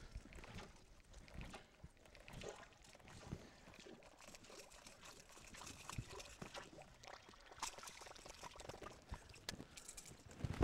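Quiet handling in a small boat while a landed peacock bass is unhooked: scattered small clicks and knocks, with water dripping and trickling.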